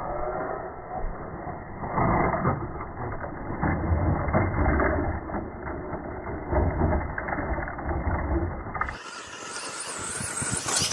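Traxxas Sledge Hammer VXL brushless electric RC monster truck driven hard on dirt: the motor runs near full throttle and the tires churn the ground. About nine seconds in, the sound changes character and the low rumble drops away.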